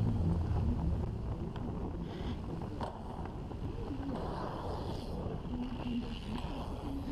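Wind buffeting the microphone, with a few sharp crackles from a wood fire burning right beside it.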